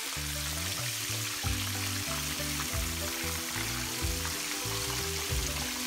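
Coated chicken pieces frying in hot oil in a cast iron skillet, a steady sizzle, under background music with changing low notes.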